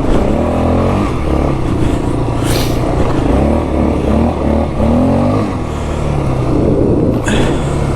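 2001 Yamaha Warrior 350's single-cylinder four-stroke engine on its stock exhaust, revving up and down as the quad is ridden, its pitch rising and falling again and again; its carburetor has just been cleaned. A brief hiss comes about two and a half seconds in and again near the end.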